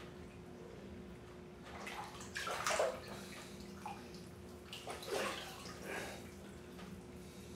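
Bathwater sloshing and splashing as a person moves their legs in a full bathtub, in two short bouts: a louder one about two to three seconds in and another about five seconds in.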